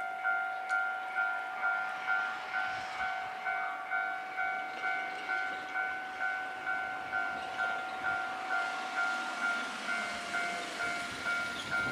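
Japanese railway level-crossing warning bell ringing steadily at about two strokes a second, its electronic two-tone clang warning of an approaching train. In the last few seconds the rising rush of the train closing in grows beneath it.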